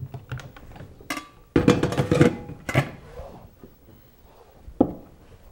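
Kitchen clatter of a metal rice-cooker pot being handled and set down: clanks with a ringing tone, loudest from about one and a half to three seconds in, then a single sharp knock near the end.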